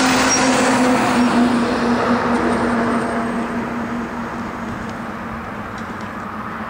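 Road traffic: a passing truck's engine hum and tyre noise, loudest in the first second or two, then fading as it moves away.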